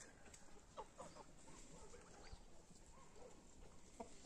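Near-quiet farmyard with a few faint, short poultry calls: a couple about a second in and another near the end.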